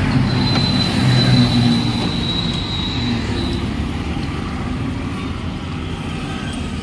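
Steady rumble of nearby motor traffic, with a thin high squeal for the first three seconds or so.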